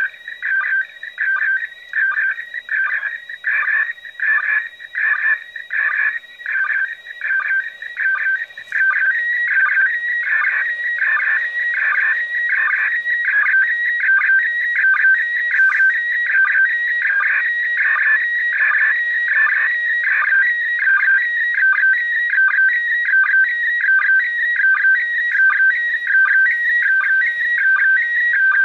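Slow-scan television (SSTV) picture signal from the International Space Station, received on 145.800 MHz FM and heard through an amateur radio transceiver's speaker. It is a warbling stream of whistle-like tones with a regular beat. For about the first eight seconds it comes in choppy bursts, then it runs on continuously.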